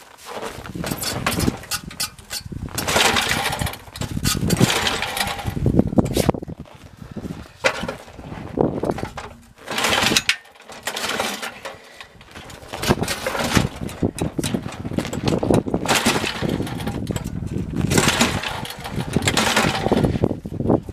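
Ariens snowblower's small engine being pull-started over and over on gas poured down the carburetor with the choke on, catching in short uneven bursts and dying again. It will not keep running, which the owner puts down to weak spark from an ignition coil that needs adjusting.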